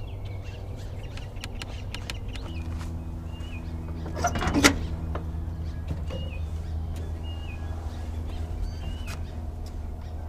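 Small birds chirping now and then over a steady low mechanical hum that grows louder about two and a half seconds in, with a brief louder noise about four seconds in.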